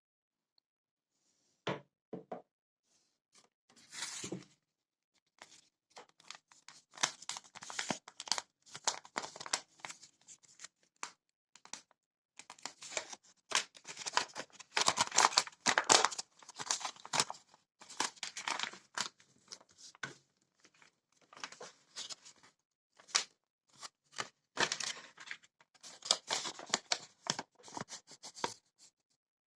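Paper and plastic packaging crinkling and rustling in irregular bursts as it is handled and opened, after a couple of short knocks about two seconds in.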